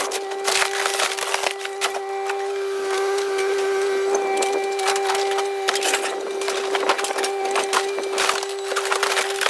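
Kubota KX057 mini excavator crushing a fiberglass boat hull with its bucket: repeated cracking and splintering of fiberglass over the steady hum of the excavator running.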